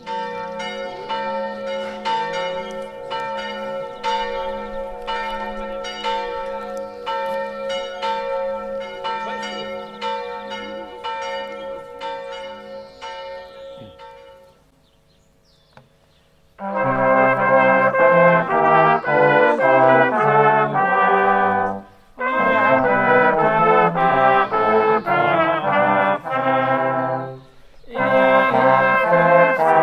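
Church bells ringing with evenly spaced strokes and fading out about halfway. After a short silence a small church brass choir of trumpets, trombones and a tuba starts playing in full chords, in phrases broken by short pauses for breath.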